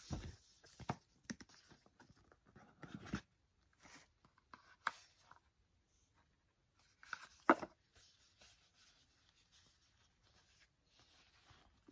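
Rustling and light tapping from unboxing a cardboard gift box by hand: satin ribbon slipping off, the lid coming away and a fabric pouch being handled, with one sharper knock about seven and a half seconds in.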